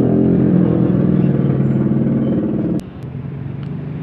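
A vehicle engine running close by, steady, then dropping off sharply about three quarters of the way in to a lower, steady engine hum. A couple of sharp clicks come just after the drop.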